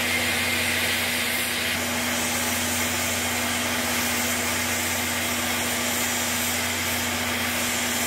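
Class D51 steam locomotive standing with steam up: a steady hiss with an even low hum underneath.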